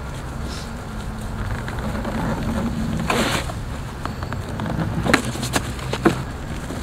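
Electric unicycle's hub motor humming under load on a steep grassy climb, its pitch rising slightly, over a steady low rumble. About three seconds in there is a scuffing rush as the rider bails out and the wheel drops onto the grass. Near the end come a few sharp knocks.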